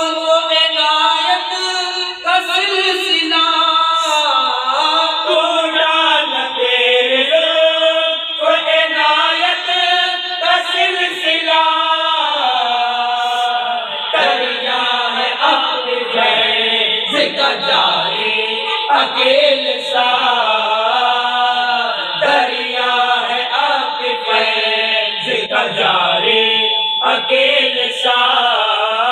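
Male voices chanting devotional Urdu verses to a sung melody, unaccompanied, without pause.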